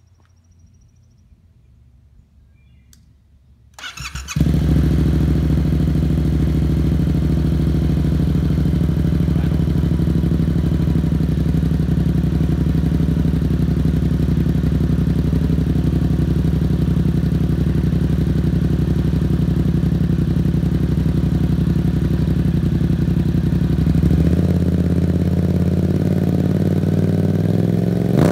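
A 2018 Yamaha XSR700's 689 cc parallel-twin breathing through a Two Brothers Racing full exhaust system with the baffles out: started on the electric starter about four seconds in, it catches at once and then idles steadily, already warm. The idle note shifts slightly about 24 seconds in.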